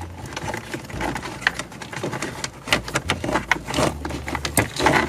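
Irregular plastic clicks, taps and rustling as wiring-harness cables and their connectors are handled, plugged in and pushed into place behind an opened dashboard.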